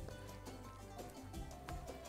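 Background instrumental music, with a few light knocks of a wooden spatula stirring food in a metal pan.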